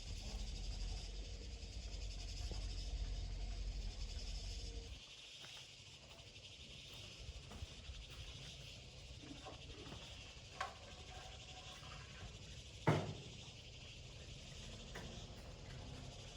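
A low steady hum, with insects chirring high above it, stops suddenly about five seconds in; afterwards the insects go on more faintly, with a small click and then a sharper knock near the end.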